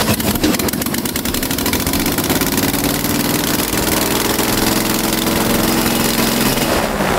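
Honda J35 V6 engine turning a propeller on a test stand, running with a rapid firing beat. Its speed rises about two seconds in, holds, and drops back near the end. The tuner reports the engine running very rich and is checking its timing.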